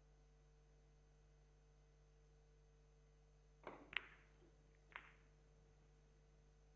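Carom billiard shot in a near-silent hall: a few sharp clicks of cue and balls striking, the loudest about four seconds in and one more a second later.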